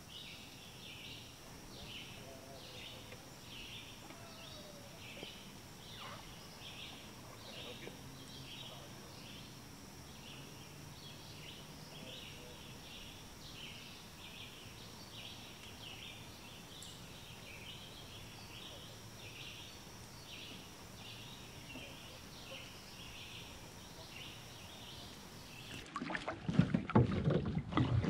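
Pond-side nature ambience: a steady series of short, high chirps, about two a second, over a faint low background. In the last two seconds a sudden burst of loud low rumbling and knocks takes over.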